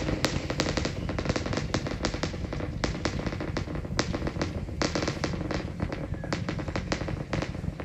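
Rocket exhaust crackle of the Super Heavy booster's 33 Raptor engines during ascent: a dense, irregular run of sharp cracks and pops over a steady low rumble.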